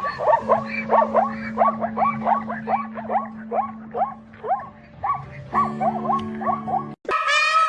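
A rapid series of short, high-pitched animal yelps, about three a second, each rising and falling in pitch, over a steady low hum. Near the end it cuts off abruptly and a louder, drawn-out animal call begins.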